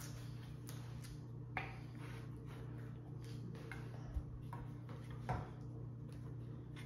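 A few light clicks and a soft thump from handling a Spanish M1916 Mauser's wooden stock and its small metal parts while working a part loose, over a steady low hum.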